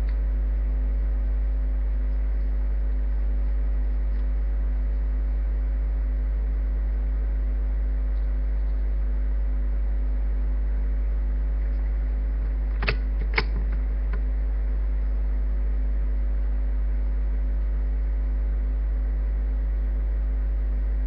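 Steady low electrical mains hum with a ladder of higher overtones. Two sharp clicks about half a second apart come partway through.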